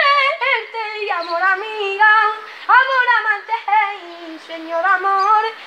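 A boy singing unaccompanied in a high voice, drawing out long phrases whose pitch bends and wavers from note to note.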